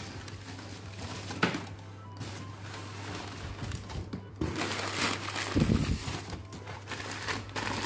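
Crumpled newspaper packing crinkling and rustling as it is pulled out of a cardboard box, with a soft thump about five and a half seconds in, over faint background music.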